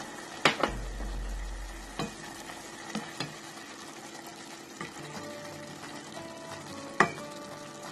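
Ground beef and diced tomatoes sizzling in a stainless steel pot while being stirred with a wooden spoon. The spoon knocks against the pot several times, loudest about seven seconds in.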